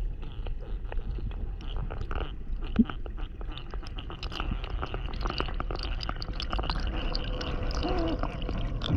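Underwater ambience picked up by a submerged camera: a steady low rumble with many scattered crackling clicks.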